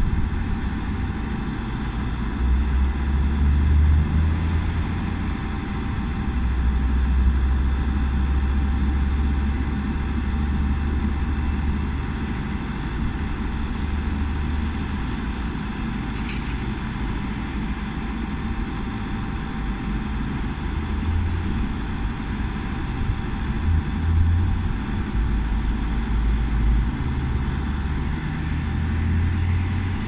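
Caterpillar backhoe loader's diesel engine running steadily close by while the boom and bucket are worked, the low engine rumble swelling and easing a little.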